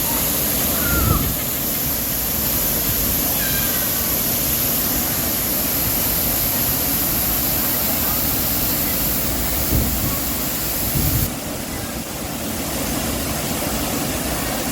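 Waterfall pouring over an old dam: a loud, steady rush of falling water, whose highest hiss thins out about eleven seconds in.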